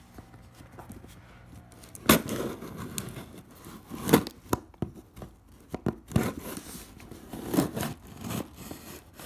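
The tape seal of a cardboard hat box being cut and torn open: a run of irregular rustles with several sharp rips and scrapes.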